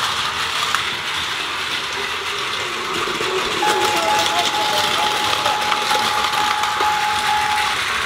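Battery-powered Plarail toy trains running on plastic track, a steady whirring rattle. From about three and a half seconds in, the DX Crossing Station playset sounds a steady electronic tone for about four seconds, with a brief voice over it.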